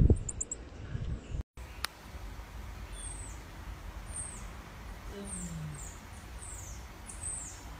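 Baby common marmoset giving thin, very high-pitched chirps that drop in pitch, about eight of them, one every half second or so from about three seconds in, while it sucks milk from a syringe.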